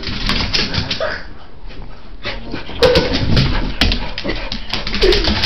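Small dog giving two short cries amid close scuffling and rustling, as she freaks out in agitation.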